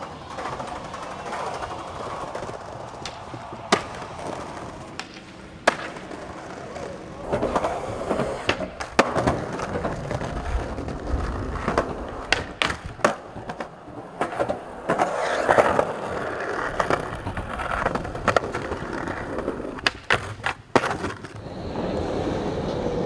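Skateboard wheels rolling over smooth concrete in several passes, each swelling and fading, with sharp wooden clacks of the board being popped and landed on tricks.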